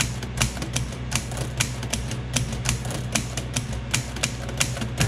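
Typewriter key-click sound effect, a quick, slightly uneven run of about four or five clicks a second, over background music.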